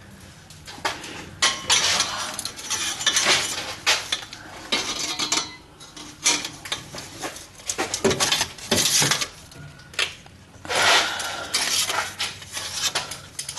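Metal exhaust pipes and clamp hardware clanking and scraping against each other, in irregular bursts, as the pipe sections are worked together into place.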